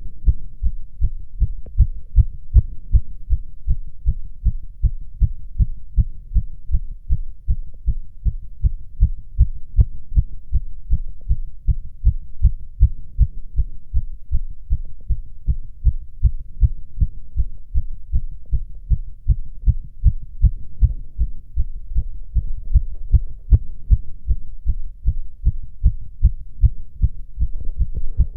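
A man's own heartbeat heard through a stethoscope: fast, regular low thuds. It is a rapid heart rate (tachycardia) with nothing abnormal in the sounds.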